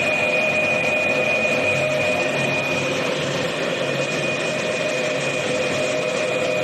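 Vertical glass washing machine running steadily: a continuous mechanical hum with a thin high whine held over it.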